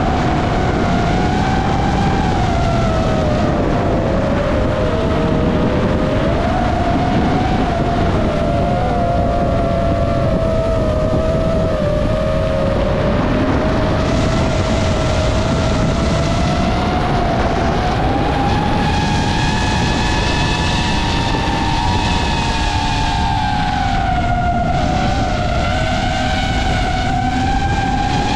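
DJI FPV drone's electric motors and propellers whining in flight, the pitch drifting down and up with the throttle and rising about two-thirds of the way through, over steady rushing wind noise.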